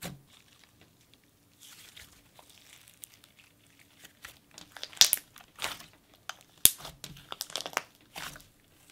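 Hands squishing, folding and stretching a thick glittery jelly slime, making scattered sticky crackles and pops, with sharper ones in the second half. The slime is overactivated: stiff, and quick to rip when stretched.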